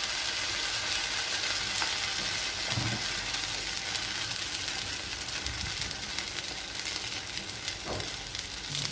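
Rounds of semolina batter frying in oil on a hot tawa griddle: a steady sizzling hiss, with a faint knock near the end.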